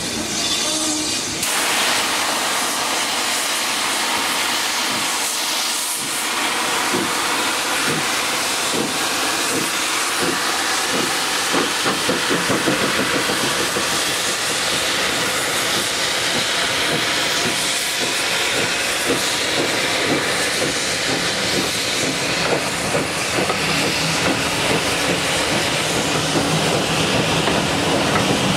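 Steam locomotive pulling away with a train, steam hissing from around its cylinders, then the coaches rolling past with their wheels clacking steadily over the rail joints.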